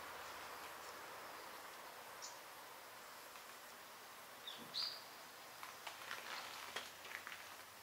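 Quiet ambience: a faint steady hiss with a few soft clicks and two short, high chirps, one about two seconds in and one near five seconds.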